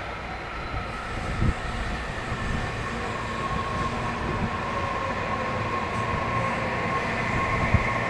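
Tobu Noda Line electric train running, its rumble slowly growing louder with a steady high whine. Two brief dull knocks, one about a second and a half in and a sharper one near the end.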